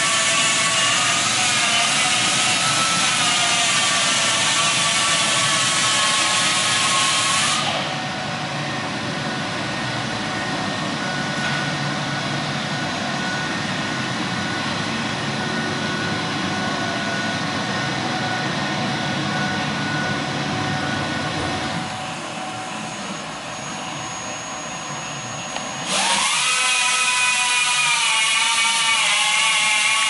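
A BTU TCA62-6-72E48 conveyor belt furnace running under test: a steady mechanical whir with several humming tones that waver in pitch. It gets quieter about eight seconds in, drops lower again a little after twenty seconds, and comes back loud near the end.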